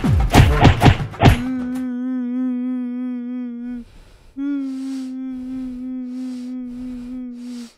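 Rapid dull thumps of hands slapping a man's back for about the first second and a half. Then a man hums two long steady notes with his lips closed, broken by a short pause about four seconds in.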